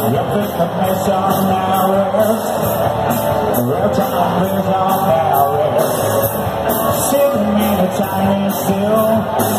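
Live rock band playing loud: electric guitars, bass and drums with regular cymbal hits, and a lead singer's voice over the band.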